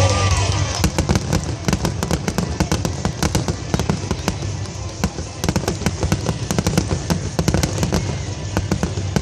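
Aerial fireworks going off in a dense run of rapid crackling pops, many small reports a second, over music playing underneath.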